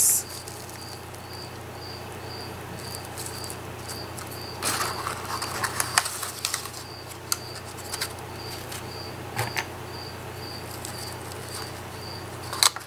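Hands crinkling and rustling paper and ribbon decorations while pressing them onto a paper medallion, with a louder patch about five seconds in and another near the end. Under it, a faint high-pitched chirp repeats evenly a little faster than twice a second.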